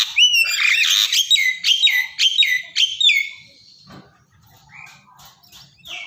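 Javan myna calling: a loud run of quickly repeated, pitch-dropping notes, about three a second, for about three seconds. After that come fainter scattered chirps and clicks.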